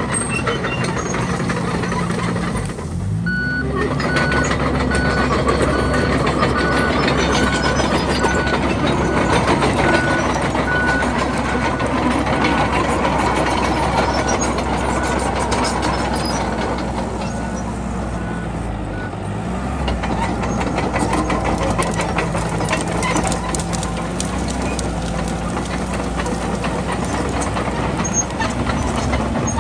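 Komatsu D31PX bulldozer's diesel engine running under load, its revs dipping briefly about three seconds in and again near the twenty-second mark. A reversing alarm beeps steadily between those dips as the dozer backs up.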